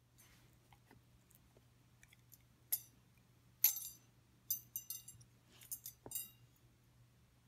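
Thin metal prongs of a wire head scratcher clinking as a dog mouths and noses it: a few light metallic ticks, the loudest about three and a half seconds in, then two quick clusters of ringing clinks.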